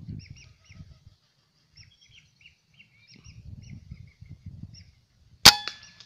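A single scoped air rifle shot about five and a half seconds in: one sharp crack with a short metallic ring, followed at once by a smaller click as the pellet hits a whistling duck. Before it, scattered short high whistling-duck calls.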